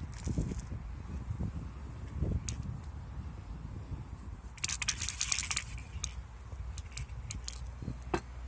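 Scattered sharp clicks and knocks over a low rumble, with a quick run of rattling clicks about five seconds in.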